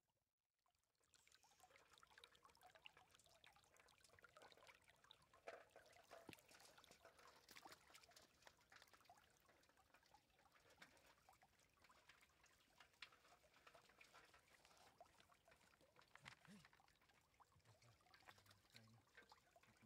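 Faint trickle of shallow water running over stones, with many small clicks and light splashes scattered through it; it starts about a second in.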